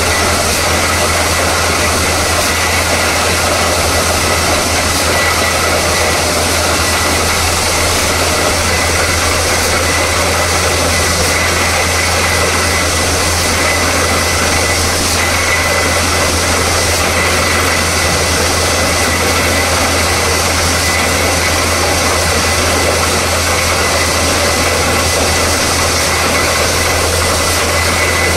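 Borewell drilling rig running steadily at full power: a loud, unbroken mechanical noise with a constant low hum and a thin steady high tone through it.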